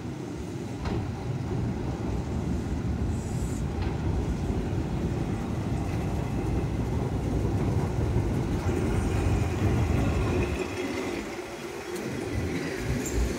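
Keihan 700 series two-car tram running along street track, a steady low rumble of its wheels on the rails and running gear as it approaches and passes close by.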